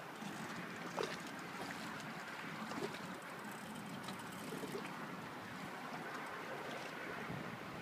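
Steady outdoor hiss of wind and river water, with a few faint clicks and taps.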